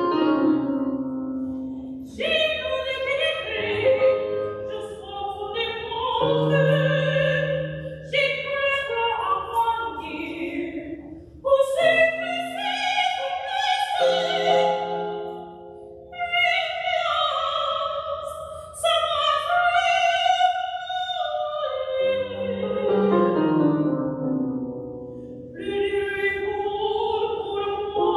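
A female voice singing an operatic aria in sustained phrases with vibrato, accompanied on an electric keyboard.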